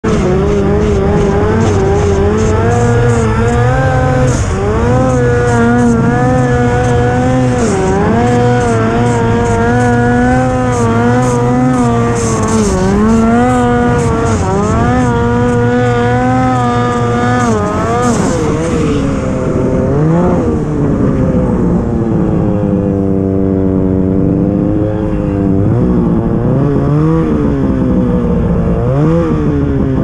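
Turbocharged Ski-Doo snowmobile engine held at high revs under throttle, dipping in pitch briefly every few seconds, with a fluttering hiss over the top. About 19 seconds in it eases off to lower revs, with a few short blips of the throttle near the end.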